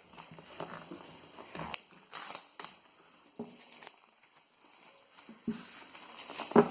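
Phone retail packaging being handled and opened: scattered rustles, crinkles and light taps of plastic wrap and a cardboard box, with a sharper click near the end.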